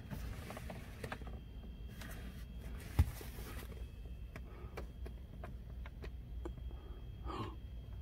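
Scattered small clicks and knocks from handling the removed plastic climate control panel, with one sharp click about three seconds in and a brief rustle near the end, over a low steady hum.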